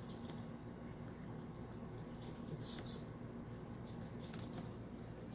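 Faint scattered light clicks and scratches of small laptop parts being handled during cleaning of the cooling fan, with a short soft hiss about three seconds in, over a steady low hum.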